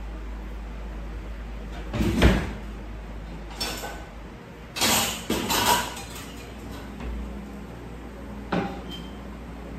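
Kitchen handling noises: cupboard doors and a frying pan knocking and clattering, a sharp knock about two seconds in, a cluster of clatters around five seconds and a last knock near the end, over a steady low hum.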